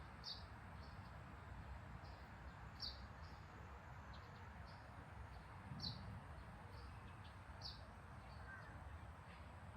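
A bird calling faintly with short, high chirps, a stronger one every two to three seconds and softer ones between, over a steady low background hum.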